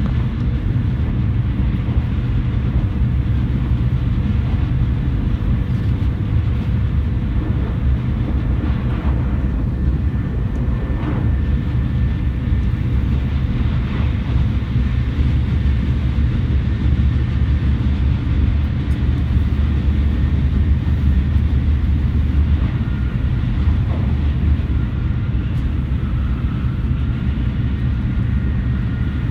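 Shinkansen bullet train in motion: a steady, loud low rumble with a faint steady whine above it.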